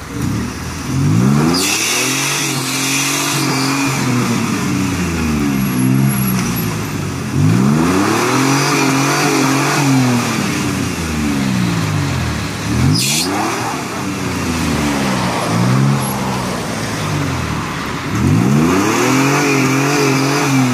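Nissan Xterra's engine revving up and falling back again and again, about every five to six seconds, as the SUV works to pull itself out of deep mud ruts. A hissing rush at the peaks comes from the tyres spinning in the mud. A sharp knock comes about two-thirds of the way through.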